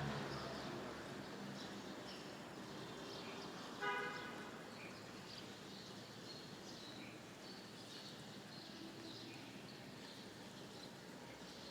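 Faint, scattered bird chirps over a low background hiss, broken by one short vehicle horn toot about four seconds in.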